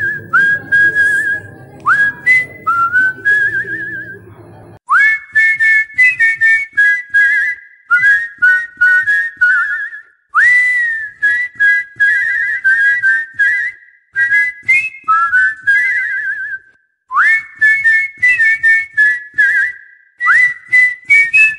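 Shrill whistling, repeated calls that each slide upward and break into a fast warbling trill, over rapid ticking. A low murmur lies underneath for the first five seconds or so.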